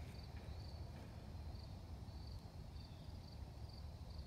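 Faint cricket chirping: short, high chirps repeating about two to three times a second over a low steady outdoor rumble.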